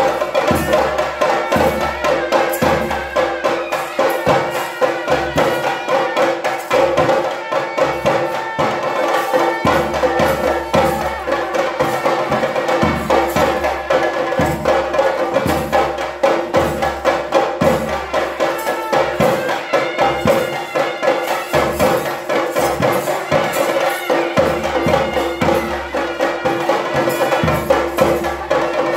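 Theyyam ritual music: chenda drums beaten in rapid, dense strokes with clashing metal hand cymbals, over steady held notes.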